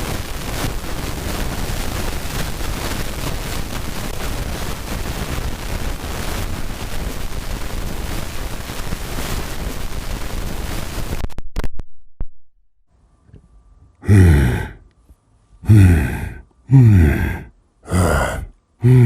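Loud, harsh static noise from a Zoom H4n recorder's faulty internal microphone, a symptom of its distortion fault, cutting off suddenly about eleven seconds in. After a short quiet, a voice makes five short groans, each falling in pitch.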